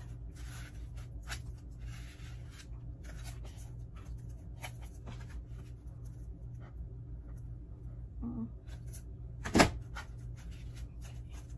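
Quiet handling of a plastic Easter egg being pressed into dried moss on a foam disc: faint scattered rustles and ticks over a steady low hum, with one sharp click a little before the end.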